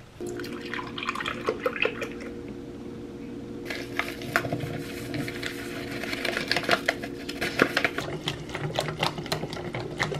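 Cold milk pours into a stainless steel mixing bowl for the first few seconds, then stops. Paper rustles and a wire whisk clicks and scrapes rapidly against the metal bowl as chocolate pudding mix is beaten in. A steady low hum runs underneath.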